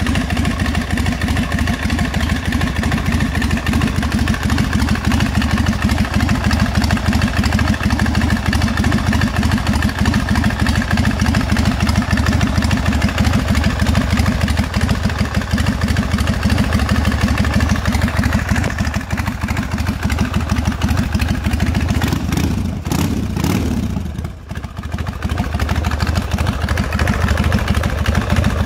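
Harley-Davidson 96 cubic inch Twin Cam V-twin, fed by an S&S Super E carburettor and breathing through short 2.25-inch Samson Big Gun Shortcut drag pipes, idling steadily with a fast, even run of exhaust pulses. Near the end the sound briefly drops in level and falls in pitch, then settles back to idle.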